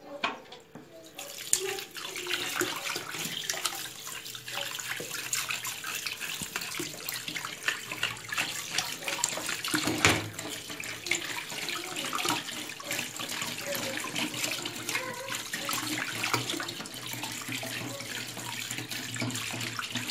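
Kitchen tap running in a steady stream into a basin of water in the sink, splashing over hands and sardines being rinsed clean under it. The flow starts about a second in, with a louder splash about halfway through.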